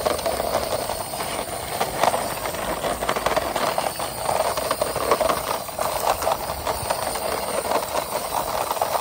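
Hard plastic wheels of a toy quad bike rolling over rough concrete as it is pushed by hand: a steady rattling rumble made of many small clicks.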